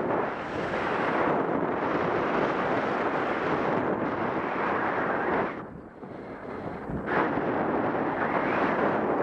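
Wind rushing over a helmet camera's microphone as a skier runs fast through powder snow. About halfway through it drops away for a second and a half, then comes back suddenly.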